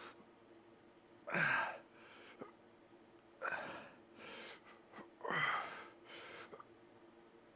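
A man's hard exhales during reps of dumbbell flyes, about one every two seconds, three in all. Each starts with a short grunt that falls in pitch and is followed by a quicker, quieter breath in.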